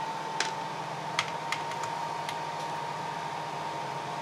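A few sharp plastic clicks from a pistol-grip RC car transmitter being handled, all in the first half, over a steady background hum with a thin steady tone.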